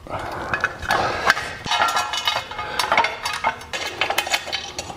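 Metal skid plate clinking and scraping against a motorcycle's frame and mounting brackets as it is fitted by hand: a quick, irregular run of light metallic clicks and rattles.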